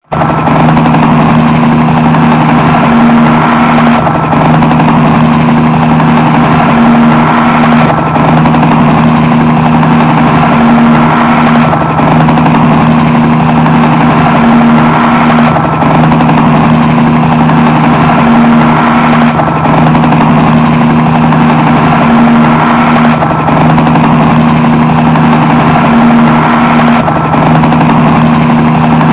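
Helicopter flying sound effect: a steady, loud engine drone with two low humming tones, a short clip looped about every four seconds.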